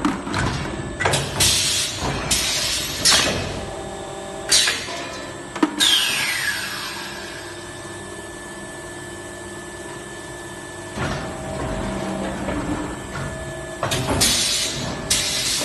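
Plastic bottle blow moulding machine cycling: sharp pneumatic hisses and knocks as the mould works, with a long hiss of air that falls in pitch about six seconds in, a quieter steady stretch, then another run of hisses and knocks near the end.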